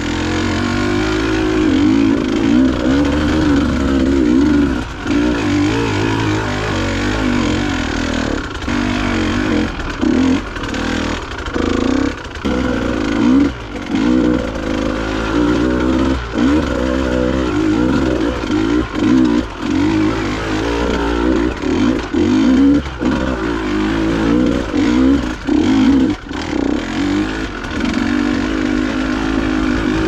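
KTM dirt bike engine running under load as it is ridden, its pitch rising and falling constantly with the throttle and dipping briefly many times as the rider eases off and gets back on the gas.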